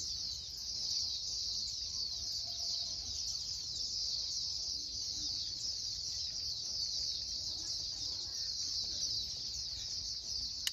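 A flock of many small birds chirping and twittering in a dense, unbroken, high-pitched chorus, with a faint low rumble of wind or handling underneath.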